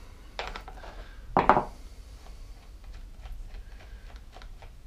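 Workshop handling noise: a small metal hand tool is knocked and set down on the workbench, with two clatters (the second, about a second and a half in, the louder), then faint taps of hands on the chainsaw's plastic housing.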